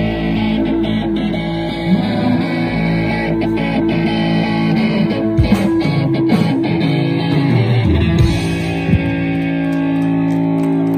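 Indie rock band playing live, with electric guitars, bass and drums. About nine seconds in the drum hits thin out and the band settles onto a held, ringing chord.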